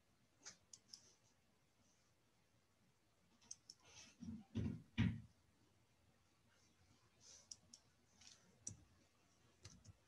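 Near silence broken by scattered faint clicks, with two short, louder low sounds about four and five seconds in.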